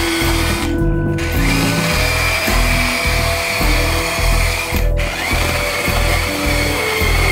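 Cordless mini chainsaw running and cutting into a tree trunk, heard together with background music that has a steady beat.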